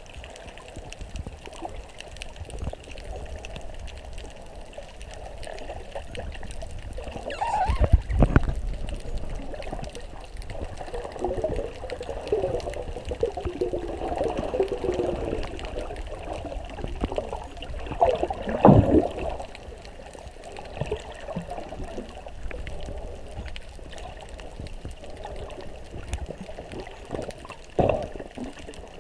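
Muffled water sound recorded underwater through a GoPro's sealed housing, with louder surges about 8 seconds in and again around 18 seconds, and a shorter one near the end.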